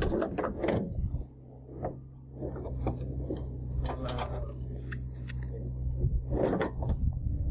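Irregular scuffs and knocks of hands and rags working against the walls of a fiberglass tank sump, over a steady low hum.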